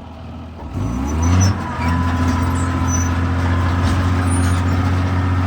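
Caterpillar D4C bulldozer's diesel engine rising in revs about a second in, then running steady at high throttle under load while pushing dirt.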